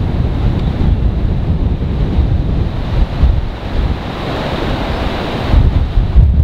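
Wind buffeting the microphone in uneven gusts, a loud low rumble over a steady rushing hiss. The hiss swells for a moment about four seconds in, and a harder gust hits near the end.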